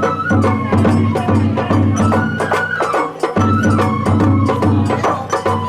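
Sawara-bayashi festival music played live: a bamboo flute's sliding melody over quick, steady drum strokes and clanging metal percussion.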